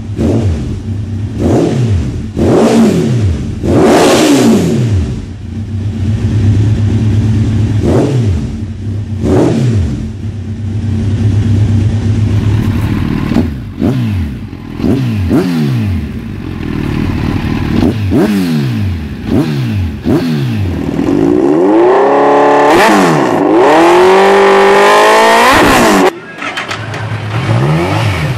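Kawasaki Z1000 inline-four motorcycle engines with aftermarket exhausts being revved in sharp throttle blips, each rev rising and falling quickly, about one every one to two seconds. Near the end a longer stretch of high revs climbs in two surges and cuts off sharply.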